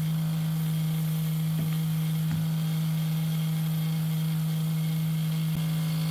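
Bench grinder with a wire wheel running with a steady hum while the threads of a rusty hinge bolt are held against the wheel to clean them, with a couple of faint scrapes.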